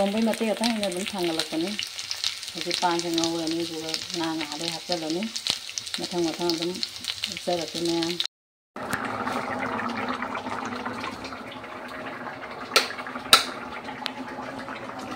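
Oil sizzling as chunks of vegetable and green chillies fry in an iron wok on a gas burner. A voice is heard over it in the first half, and two sharp clicks come near the end.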